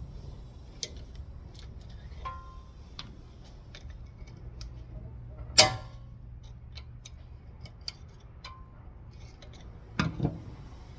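Scattered light metallic clicks and taps, with a brief ringing ping about two seconds in, one sharp ringing metal clank about halfway through, and two duller knocks near the end.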